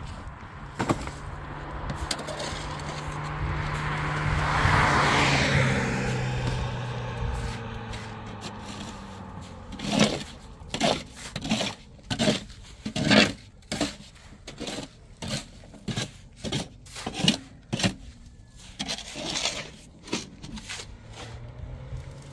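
A vehicle passing on the road, its noise swelling and fading over the first several seconds. Then a shovel scraping and striking into concrete mix, sharp irregular strokes about once or twice a second.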